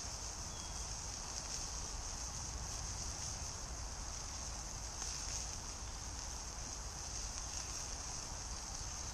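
Steady woodland background: a low, even rumble of distant motorway traffic under a constant high-pitched hiss, with no sudden sounds.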